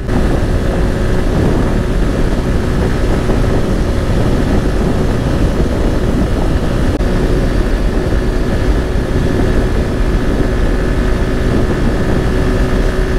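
Motorcycle engine running at a steady cruise at highway speed, with wind rushing over the microphone.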